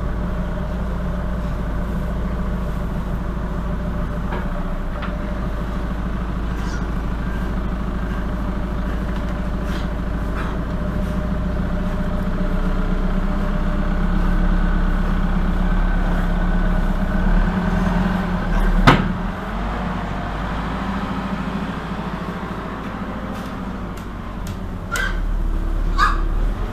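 Merlo 37.10 telehandler's diesel engine running steadily, a constant low hum. A single sharp knock comes about two-thirds of the way through, and a couple of brief high-pitched sounds come near the end.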